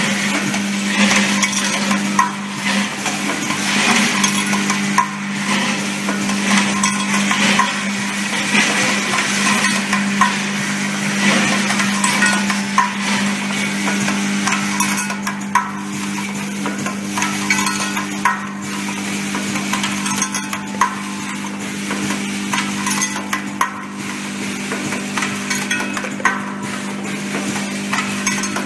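Automatic hook attachment welding machine running: a steady hum under continual metallic rattling and clinking of small wire hooks and parts, with many sharp clicks.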